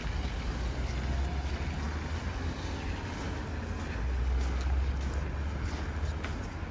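Street ambience: a steady low rumble of traffic and wind on the microphone, with the rumble swelling about four seconds in.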